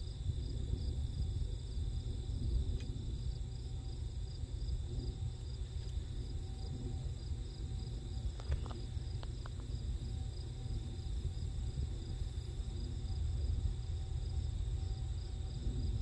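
Field insects chirping steadily, a high pulsing chorus, over a low rumble.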